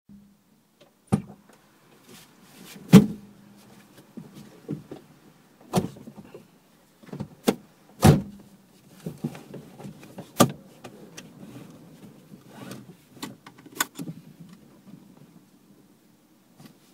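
A driver climbing into a small car: a string of clunks and knocks from the door and seat, the loudest about three seconds in and again about eight seconds in, with rustling between them.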